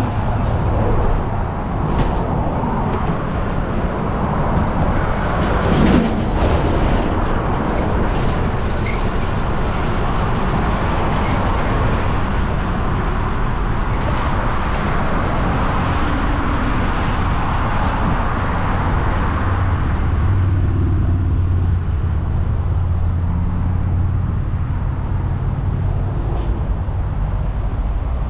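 Steady highway traffic noise from trucks and cars passing close alongside, mixed with wind rumble on the microphone of a camera riding on a moving bicycle.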